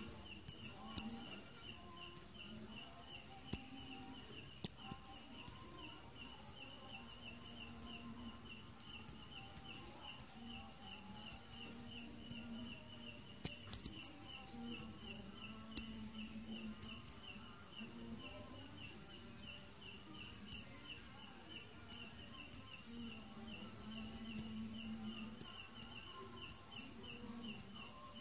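Insects chirping in a steady rhythm, about two to three chirps a second, over a steady high-pitched buzz, with a few sharp clicks scattered through.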